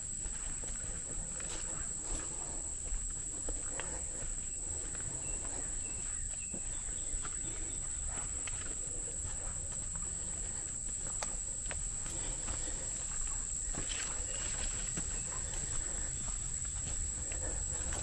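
A steady, high-pitched chorus of insects, with scattered footsteps on a dirt forest trail.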